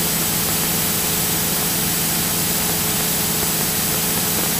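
Steady drone of a Cessna 172SP's four-cylinder engine and cabin noise in flight, with an even hiss over it and no change throughout.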